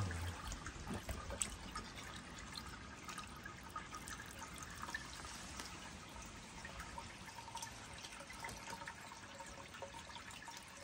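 Water trickling and dripping from the outlet tube of a homemade PVC black-sand separator into a plastic gold pan: a faint, steady trickle with small drips.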